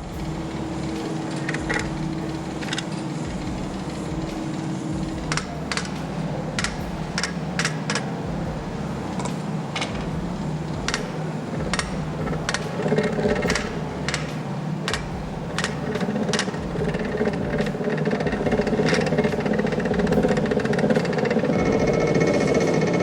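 Water-powered tail hammer striking on its trial run after a new hammer stock has been fitted. The blows come unevenly at first, then more often, over a steady mechanical rumble that grows louder as the hammer picks up speed.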